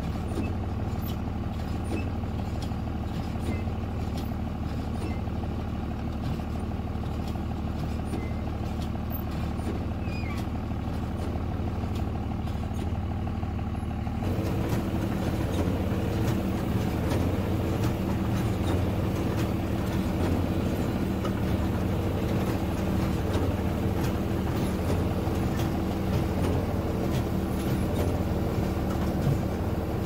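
Massey Ferguson 7495 tractor running steadily under load, pulling a New Holland BB940 large square baler with its pickup and plunger working. It is a steady machine drone that gets louder, with a clearer hum, about halfway through.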